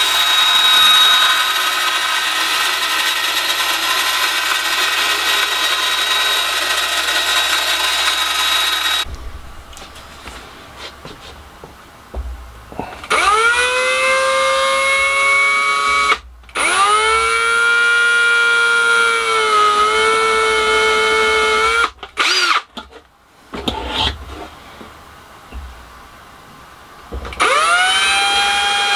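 A bandsaw runs steadily as a piece is fed through it, stopping abruptly about nine seconds in. Then a Ryobi 18V cordless drill whines up to speed three times in runs of a few seconds, its pitch rising as each run starts and sagging briefly in the middle one.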